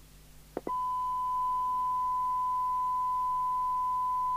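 PNI HP55 CB radio's speaker opening its squelch with a click a little over half a second in, then giving out a steady 1 kHz test tone demodulated from the signal generator's signal. The squelch has just opened at its maximum threshold setting.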